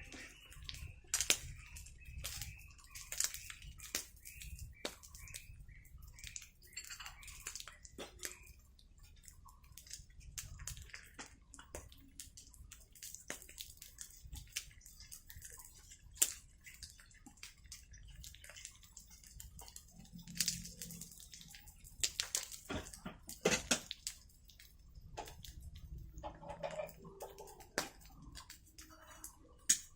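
Irregular small clicks and knocks over a low rumble, with a denser run of sharper knocks about two-thirds of the way through.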